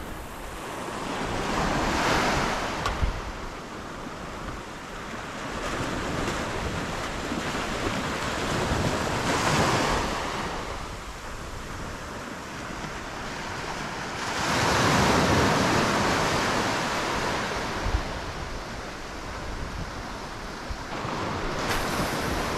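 Small waves breaking and washing up a sandy beach, swelling in three main surges several seconds apart. Wind rumbles on the microphone underneath.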